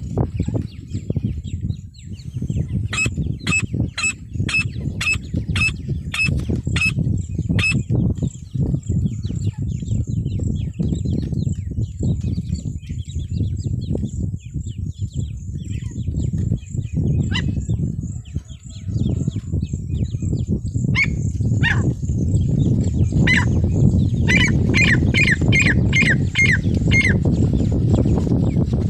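Female francolin (teetar) calling: a run of about nine sharp, evenly spaced notes at about two a second, then a few scattered notes, and near the end a faster run of about seven notes. A loud low rumble runs underneath.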